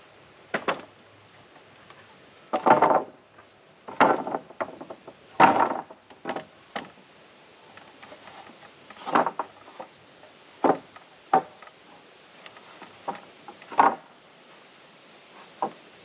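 Pressure-treated wooden deck boards knocking and clattering against each other and the sawhorses as they are set down and shuffled into place, in irregular knocks, some single and some short rattling runs.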